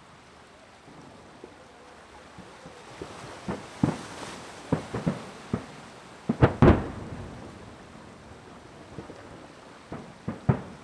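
Aerial fireworks shells bursting in a string of sharp booming bangs, each with a rumbling tail. The bangs build from about three seconds in, the loudest pair comes past the middle, and after a short lull a new cluster starts near the end.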